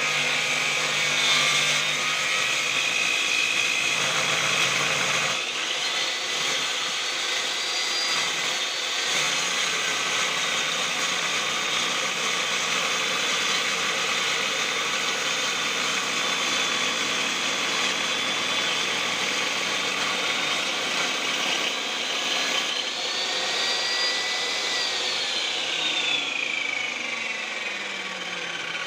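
Wood saw machine running with a steady mechanical noise and a high whine. The whine rises in pitch about five seconds in, holds, and falls away over the last few seconds.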